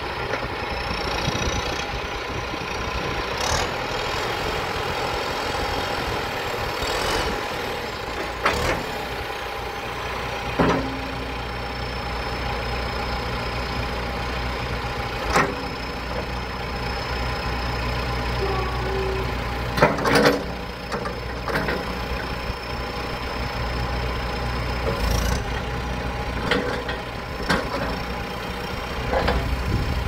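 2008 John Deere 310SJ backhoe loader's diesel engine running steadily, with a thin high whine over it. Short sharp knocks come about eight times while the backhoe boom is worked.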